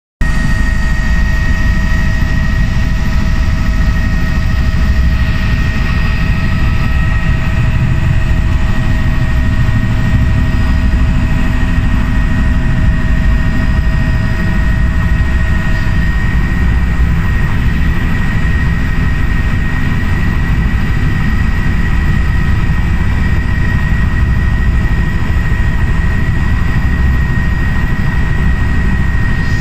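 Helicopter engine and rotor running: a loud, steady low rumble with a steady high whine throughout.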